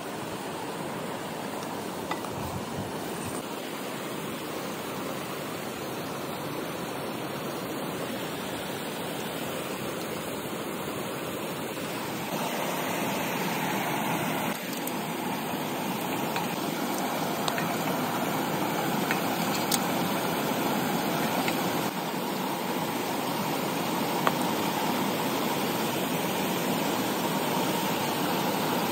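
Steady rushing noise of flowing water, with a few faint clicks.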